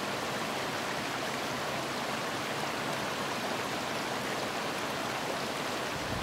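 Shallow, rocky stream running steadily over stones: an even, unbroken sound of flowing water.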